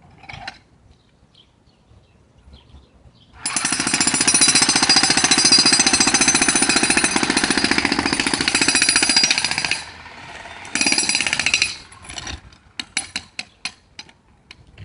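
Large jackhammer hammering: after about three seconds of quiet it starts up and runs in one long continuous burst of rapid blows for about six seconds, stops, gives a second shorter burst, then a string of brief stuttering blips near the end.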